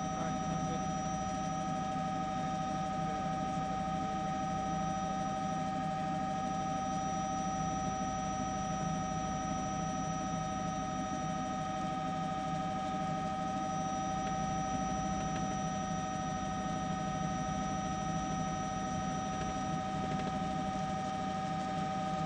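Steady drone of a helicopter: several constant high whining tones over a low hum, unchanging throughout.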